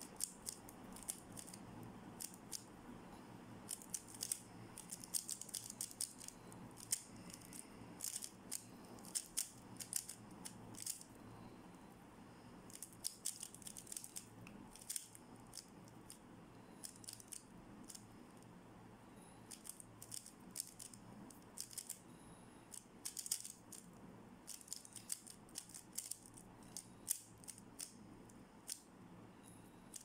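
MoYu RS3M 2020 3x3 speedcube being turned fast by hand: rapid bursts of light plastic clicks as the layers snap round, with short pauses between the bursts.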